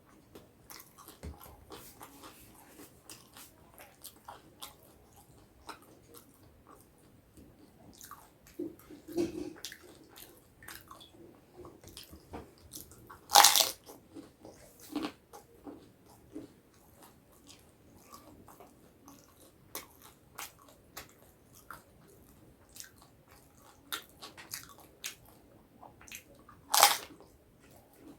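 A person chewing and biting crisp snacks, with wet mouth clicks and smacks throughout. Two loud, sharp crunches stand out, one about halfway through and one near the end.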